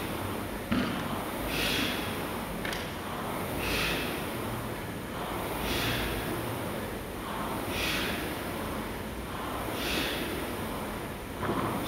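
Concept2 air rowing machine worked at about one stroke every two seconds: a whoosh from the fan flywheel surges with each pull, mixed with the rower's hard breathing. A sharp knock comes just under a second in, with fainter ones later.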